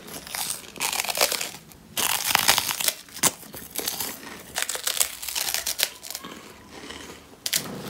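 Close-up crunching and chewing of crunchy, spice-coated snack sticks, in crackly bursts about once a second.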